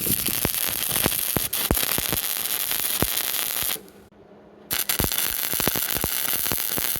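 Hobart Handler 140 wire-feed welder running flux-core wire, its arc crackling and spattering while welding cattle panel wires. The arc stops about four seconds in and strikes again about a second later.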